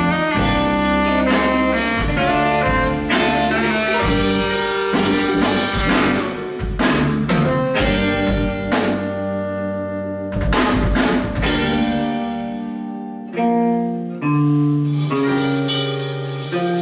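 Live blues band of electric guitar, keyboards, drum kit, bass and tenor saxophone playing the instrumental close of a song. For about ten seconds the drums accent the beat, then they drop away and the band winds down into long held chords.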